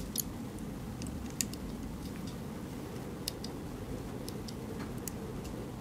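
Small scissors snipping and trimming tape around a bearing: a few sharp, light clicks spaced irregularly over a steady low background noise.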